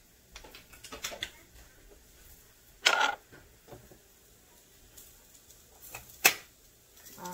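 Spice jars and containers being handled and set down: scattered light clicks, a short clatter about three seconds in, and a sharp knock about six seconds in.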